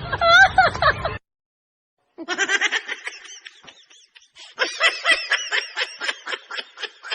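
The tail of a voice clip cuts off about a second in, followed by a second of silence, then a person's snickering laughter: runs of short, quick laughs.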